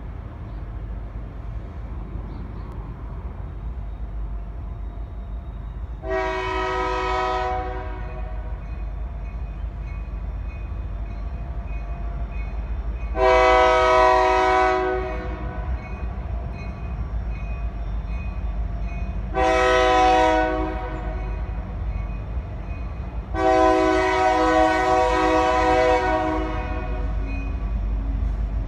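Air horn of a former Union Pacific SD90MAC diesel freight locomotive sounding the grade-crossing signal: two long blasts, a short one and a final long one, spaced several seconds apart, over a steady low rumble.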